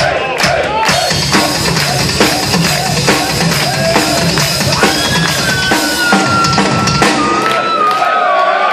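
A rock drum kit played live on stage. The bass drum beats steadily under snare and cymbal hits. Near the end the bass drum stops and drawn-out shouts from the crowd rise.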